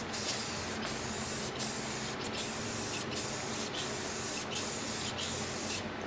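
Clear-coat finish being sprayed onto a wooden panel: a steady hiss in passes, breaking off briefly between strokes about every second.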